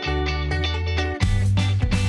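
Background music led by guitar, turning louder and fuller with a heavier bass about a second in.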